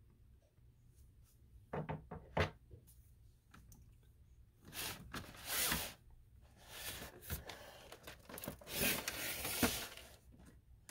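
Cardboard collector's box handled and turned over by hand: a few soft knocks about two seconds in, then faint rubbing and sliding of the card against hands and the surface.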